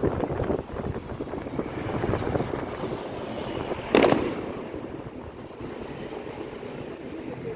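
Wind gusting and buffeting the microphone, with a single sharp firework bang about four seconds in.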